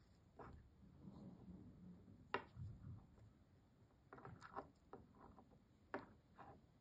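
Near silence with a few faint small clicks and soft rubbing as glass seed beads are picked up on a beading needle and the needle is passed through the beadwork.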